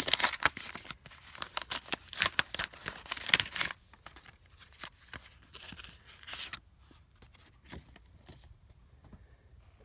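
A paper envelope being torn open and handled, with a quick run of rips and rustles for the first few seconds. Fainter paper rustling follows and stops about two-thirds of the way through.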